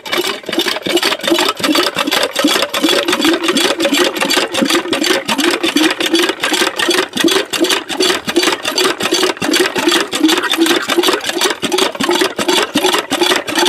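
Small engine of an irrigation water pump running steadily, with a rapid, even pulsing beat.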